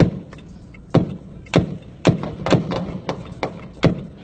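Gunfire: a series of sharp shots at uneven intervals, about seven loud ones with fainter ones between, as police and a man armed with an R-15 (AR-15-type) rifle fire at each other.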